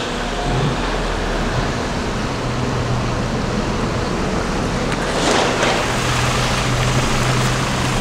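Car driving slowly: steady road and wind noise with a low engine hum. The noise swells briefly about five seconds in.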